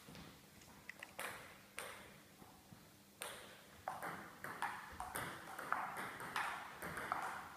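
Table tennis ball clicking: a few taps as the server readies, then from about three seconds in a rally of quick, sharp hits of the celluloid ball off rubber paddles and the tabletop, a few per second, echoing in a large hall.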